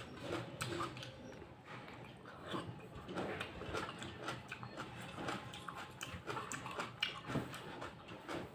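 A person chewing raw tomato, with wet smacking and squishing mouth sounds coming at an irregular pace.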